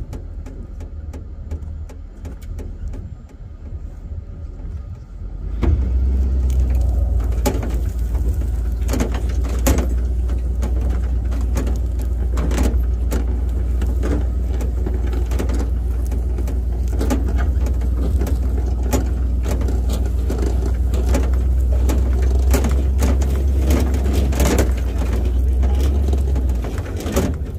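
Towing vehicle's engine pulling under load: a steady low drone that starts about five seconds in and stops near the end. Over it come frequent knocks and rattles from the towed wreck's loose body and the tow line as it bumps across rough ground.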